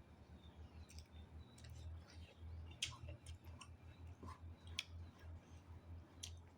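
Faint, scattered clicks of someone eating, a handful over several seconds, over a low hum.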